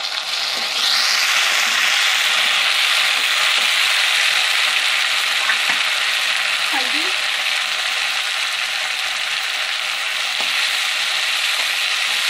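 Chopped tomatoes frying in hot oil with browned onions in a kadhai: a loud, steady sizzle that swells about a second in as the tomatoes hit the oil, with a spoon stirring through the pan.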